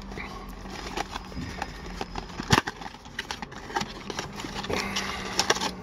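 Cardboard blaster box of trading cards being opened by hand: scattered clicks and scrapes of the cardboard as the flap is worked open, with one sharper snap about two and a half seconds in.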